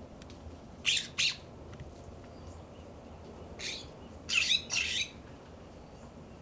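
Juvenile California scrub jays giving short, harsh, raspy calls: two close together about a second in, then three more in quick succession a little past the middle.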